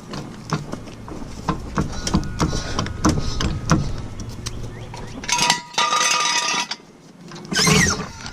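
Metal tools and parts clinking and knocking during work at a car wheel: a series of light taps and clinks, then a louder stretch of rattling about five seconds in, and another brief burst near the end.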